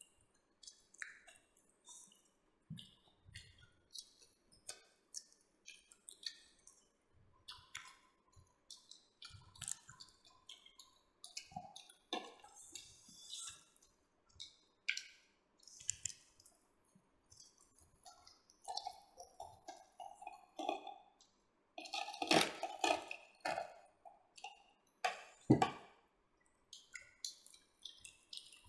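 Close-up eating sounds of several people chewing roasted pork: many short wet smacks and clicks of mouths and fingers. A knife cuts through the crisp roast and scrapes the serving plate, with the loudest, sharper clatter a little past the middle.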